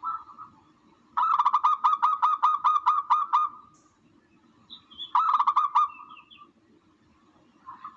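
Recorded bird call played as a hunting lure for tukmo (doves): a fast run of harsh, repeated notes at about five a second, then a shorter run of a few notes a couple of seconds later, over a faint steady hum.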